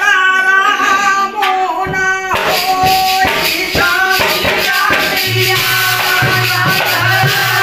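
Dehati folk devotional singing: a man's voice sings a verse of thali Ramayan. About two seconds in, a dholak and a jingling wooden-framed rattle with metal discs join in rhythmic accompaniment.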